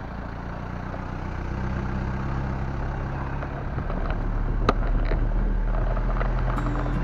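A vehicle engine running steadily while driving, getting louder as it goes, with one sharp click about halfway through.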